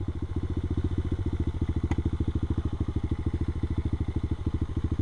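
Orion X-125 pit bike's 125 cc single-cylinder engine idling steadily with a rapid, even putter. A faint tick is heard about two seconds in.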